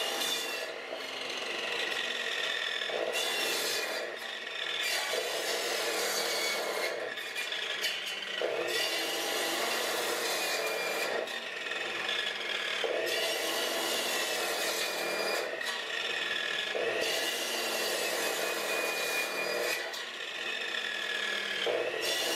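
KEYANG electric circular saw running and cutting through whole carp, fish and bone, in repeated passes. A rasping cut comes every two to three seconds, and the motor's high whine wavers in pitch as the blade takes the load.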